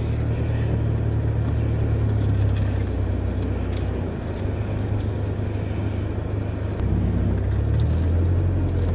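Land Rover engine running at low revs as the vehicle crawls along a rough bush track, with a steady low hum whose note changes near the end.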